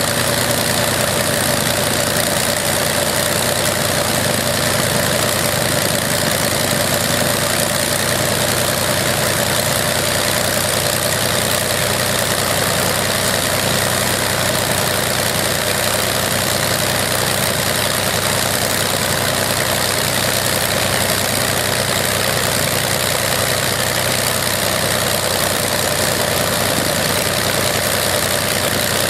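Antique aeroplane's piston engine running steadily, its propeller turning, with no change in speed.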